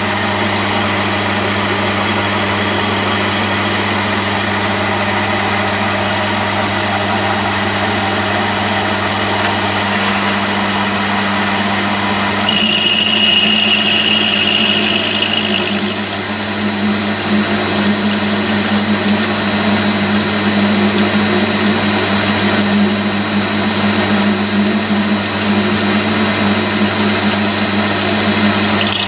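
Milling attachment's electric motor running steadily, driving an end mill through a 6 mm keyway slot in a bright mild steel shaft, with a thin high whine throughout. About twelve seconds in the sound changes, and a higher tone rings for about three seconds.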